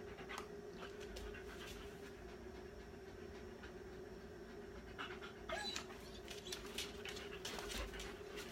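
A dog panting during a training session, with a few sharp clicks and taps in the second half. A steady low hum runs underneath.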